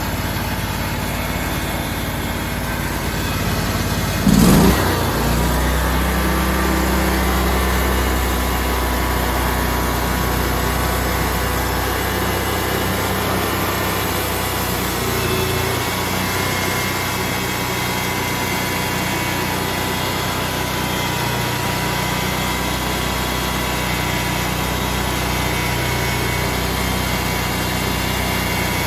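Band sawmill's engine running steadily, with a short loud surge about four seconds in, then holding a steady note under load with a thin high whine as the blade cuts through a white walnut (butternut) log.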